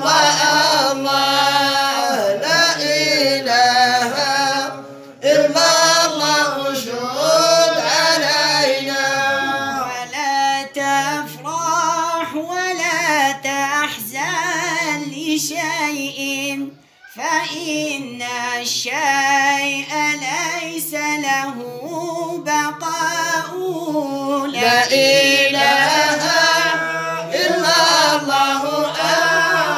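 Madih nabawi, Islamic devotional chanting in praise of the Prophet: a voice sings long, ornamented, wavering melodic lines over a steady held low drone. There are brief breaks for breath about five and seventeen seconds in.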